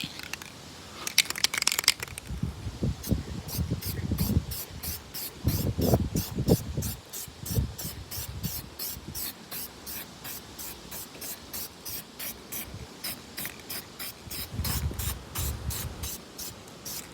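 Aerosol spray can hissing as a coating is sprayed onto a sanded headlight lens, in rapid pulses about two to three a second. Low dull thumps come and go under it.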